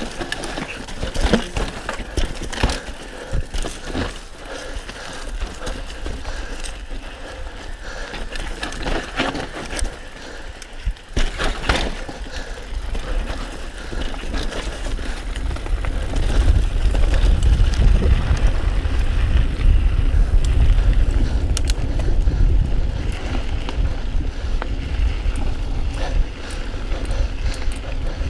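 Mountain bike descending a dry, rocky dirt trail: the frame and drivetrain rattle and knock over bumps and the tyres crunch on loose ground. From about halfway a low rumble of wind on the microphone builds as the bike runs faster on the smoother track.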